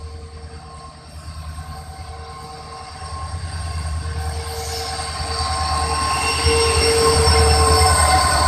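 Diesel locomotive approaching and running past at close range, hauling a train. It grows steadily louder: a deep engine rumble with steady whining tones over it.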